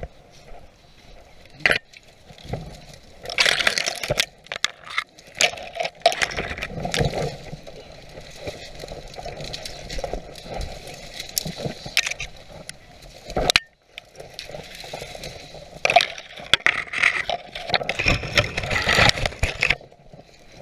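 Dry leaves crunching and rustling underfoot, with bare branches scraping and twigs snapping as a person pushes through dense brush. The sound comes in uneven clusters with many sharp cracks, and is loudest in a few stretches.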